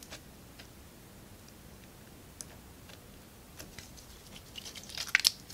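Thick, putty-like glitter slime being stretched and squeezed in the hands, giving faint sticky clicks and pops, with a quick run of louder clicks near the end.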